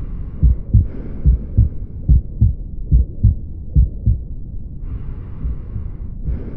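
Auscultated heart sounds with the murmur of tricuspid regurgitation: low lub-dub beat pairs a little under once a second, with a murmur between them. The beats grow fainter in the last couple of seconds.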